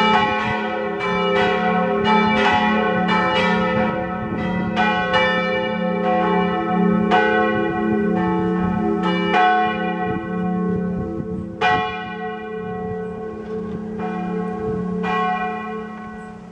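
Church bells ringing from a bell tower, strike after strike over a steady hum. The strikes come thickly at first, then thin out to one every second or so, and the ringing grows quieter near the end.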